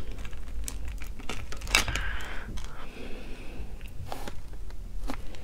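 Sauce-coated boiled shellfish being pulled apart by hand: shells crackling and snapping, with a sharp crack about two seconds in.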